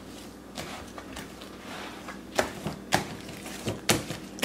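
Fluffy slime being squished and pressed by hands in a plastic tub: a run of irregular short wet pops and squelches, louder from about halfway through.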